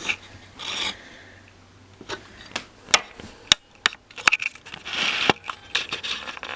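A model airliner being handled and set down on a wooden table: a string of sharp clicks and light knocks, with some rustling in between.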